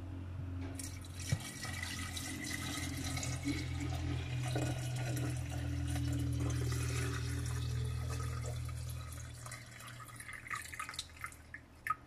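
Water poured from a plastic bottle into the empty salt reservoir of an Electrolux ESL94511LO dishwasher: a steady pour that tails off into a few drips near the end. This is the reservoir being filled with about a litre of water before its first use, ahead of adding the salt.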